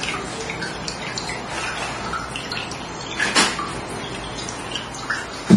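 Hands handling a patient's neck and shoulders during a chiropractic treatment: small scattered clicks and taps, a sharper click about three and a half seconds in, and a dull thump at the very end.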